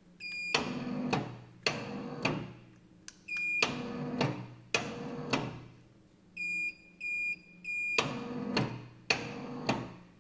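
3T-MOTORS radio roller-shutter tubular motor with electronic limit switches confirming programming steps. It gives one beep and jogs the shutter briefly down and back up, does the same again, then gives three beeps and jogs down and up once more. Each short run is a motor hum, with a click where it starts and stops. This is the confirmation sequence that initialises end-position setting.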